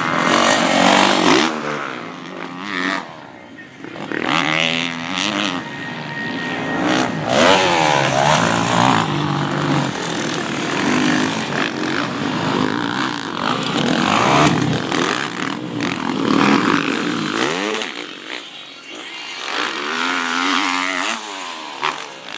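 Motocross dirt bike engines revving hard, the pitch climbing and dropping again and again with throttle and gear changes, the bikes getting louder and fainter as they pass.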